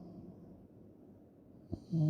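A sleeping person breathing softly in the pause between snores: a faint breath at the start, a quiet stretch, then a short click near the end as the next snore begins.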